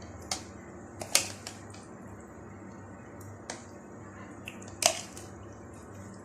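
A spoon knocking and clicking against a container while hot pepper puree is spooned into it: a handful of sharp clicks, the loudest about a second in and again near the end, over a faint steady hum.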